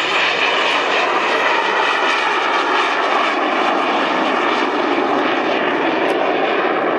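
Aero L-29 Delfín jet trainer flying past low: a steady, loud jet engine noise with faint whining tones running through it.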